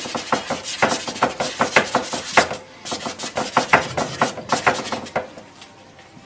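Stiff bristle paintbrush scrubbing oil paint onto a canvas in quick, short, scratchy strokes, about three or four a second. There is a brief pause about halfway, and the strokes die away near the end.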